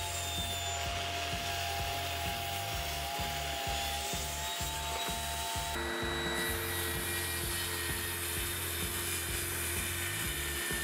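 Table saw running and cutting a Formica-topped plywood panel, a steady sawing sound with a sustained tone. The tone changes abruptly about six seconds in.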